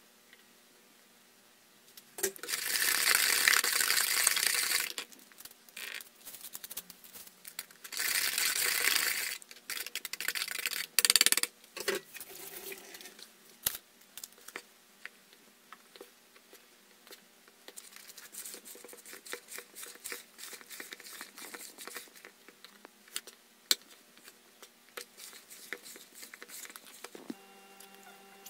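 Wire whisk beating a runny cake batter in a plastic bowl, in two bursts of a few seconds each, followed by scattered clicks and taps of utensils against the bowl. A faint steady hum starts near the end.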